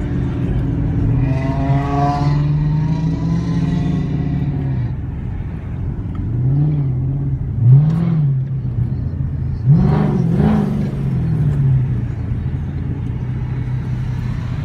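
Dodge Charger V8 engine rumbling at low speed, heard from inside the cabin, with the revs rising and falling several times, in short blips between about six and eleven seconds in.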